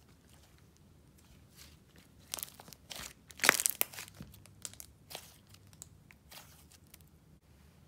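A thick, soft slime squeezed and folded in the hands, giving crackling, popping squishes. The loudest burst of crackles comes about three and a half seconds in, followed by thinner, scattered pops.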